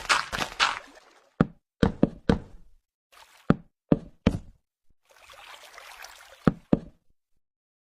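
A series of about nine sharp knocks at uneven intervals, with a short stretch of soft noise between the last few.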